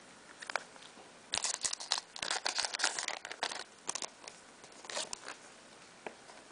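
Foil Pokémon booster pack wrappers crinkling and rustling as they are opened, in bursts over a couple of seconds, followed by a few light clicks of the packs and cards being handled.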